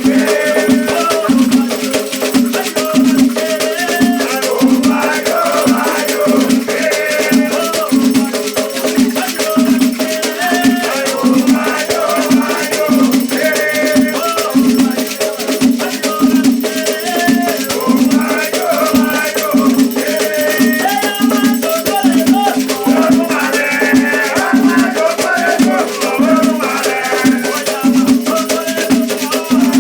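Afro-Brazilian Batuque ritual music: a shaken rattle keeps a steady, fast beat under singing voices.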